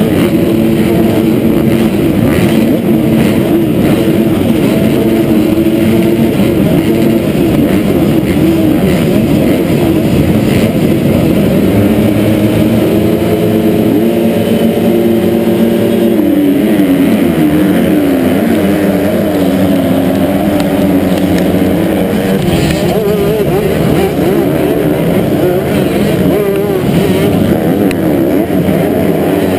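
A field of motocross bikes' engines held at high revs on the start gate, then the pack accelerating hard off the line about halfway through, engine pitch climbing and dropping through the gear changes.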